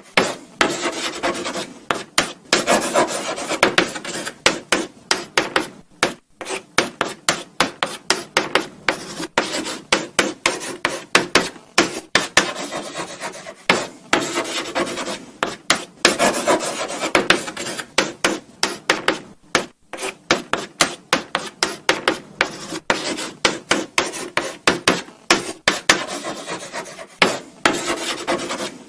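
Chalk writing on a blackboard: a continuous run of short scratchy strokes and taps as letters are formed, with brief pauses between words.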